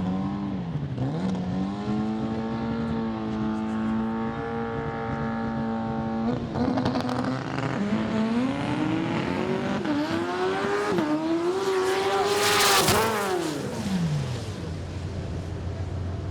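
Drag race car engine held at steady revs for a few seconds, then accelerating hard with the pitch climbing in several steps through gear changes. Near the end, just after its loudest moment, the engine note drops steeply.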